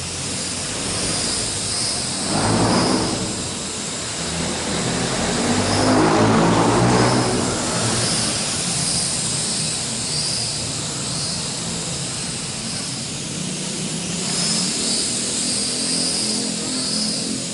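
Small L6036 quadcopter's motors and propellers buzzing in flight, a high whine that wavers in pitch as the throttle changes. It swells louder twice, briefly about two seconds in and for longer around six seconds in.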